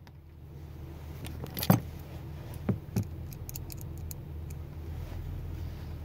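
Small metal clicks and ticks of a screw and screwdriver being worked into the housing of a KABA 3000-series push-button lock: one sharp click about two seconds in, two more about a second later, then a quick run of faint ticks. A steady low hum runs underneath.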